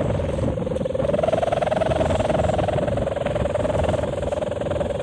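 A kite's bamboo hummer (sendaren) humming one steady note that wavers slightly up and down in pitch as the wind gusts, over strong wind rumble on the microphone.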